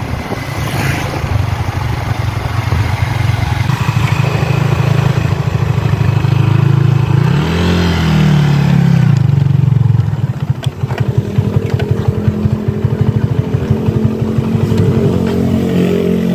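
Small motorcycle engine running while riding, with the rush of air past the bike. About halfway through the engine note rises and falls once, then drops to a quieter, uneven putter as the bike slows to a stop.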